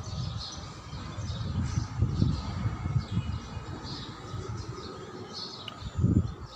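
Small birds chirping over and over, with irregular low rumbles on the microphone that are loudest about six seconds in.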